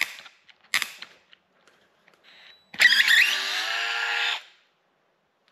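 DeWalt 8-volt gyroscopic cordless screwdriver's motor running for about a second and a half, a whine that rises slightly as it starts, then holds steady, with a short click about a second before it.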